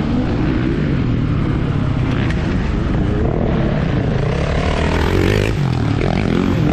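Yamaha WR155R's 155 cc single-cylinder four-stroke engine running under riding load over a steady rush of noise, its pitch rising and falling with the throttle about four to five seconds in.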